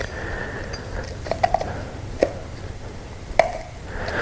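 A handful of light, separate clicks and clinks from metal car parts and tools being handled during a thermostat housing swap, over a faint low hum.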